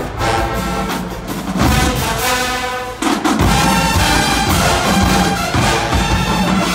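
College marching band playing, brass over drums, swelling louder and fuller about three seconds in.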